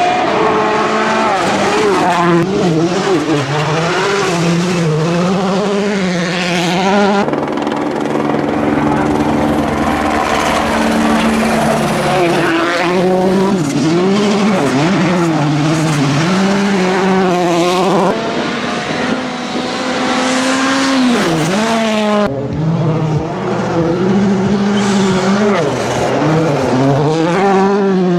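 Volkswagen Polo R WRC rally car engines revving hard, the pitch repeatedly rising and dropping through quick gear changes as the cars are driven flat out. The sound jumps abruptly between passes a few times, with some tyre squeal.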